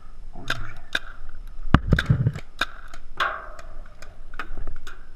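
Paintball markers firing shots at irregular intervals, a string of sharp pops, with one louder, deeper thump about two seconds in.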